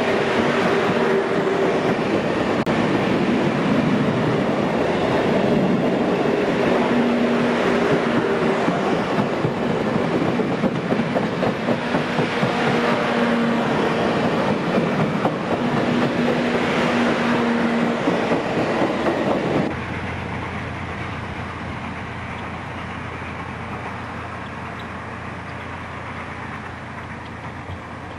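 Passenger cars behind steam locomotive Union Pacific 3985 rolling past at speed, a loud steady clatter of wheels on rail. The locomotive's chime whistle sounds from up ahead in several separate blasts. About two-thirds of the way through, the sound drops abruptly to a quieter, more distant rumble of the train with a low steady hum.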